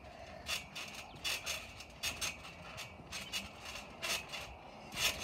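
Steel springs of a backyard trampoline squeaking and rattling with each landing as two kids bounce on the mat, in a quick uneven rhythm of two or three hits a second.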